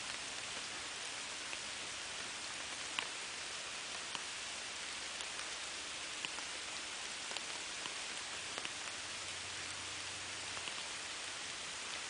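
Steady rain falling, an even hiss with scattered individual drops ticking close by, the sharpest about three seconds in.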